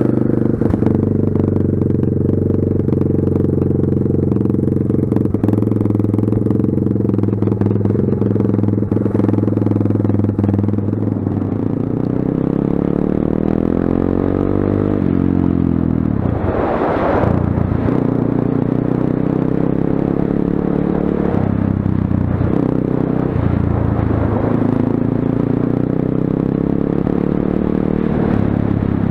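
Kayo dirt bike engine running just after starting: a steady idle for about ten seconds, then changing pitch with the throttle as the bike rides off and keeps going, with a brief loud rush about 17 seconds in.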